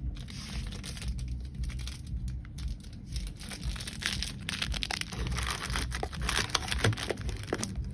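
Crinkling and rustling of packaging being handled, with small clicks and knocks, busiest in the second half.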